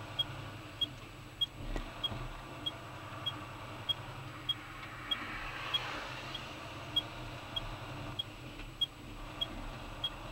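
Car cabin noise while driving on a highway: steady engine and road hum, with a short regular tick about every 0.6 seconds. About five to six seconds in, tyre and road noise swells as a police car passes close alongside.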